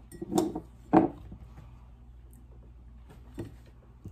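Knocks of a glass and containers being set down and handled on a tabletop: a quick cluster near the start, the loudest knock about a second in, and a softer one a little past three seconds.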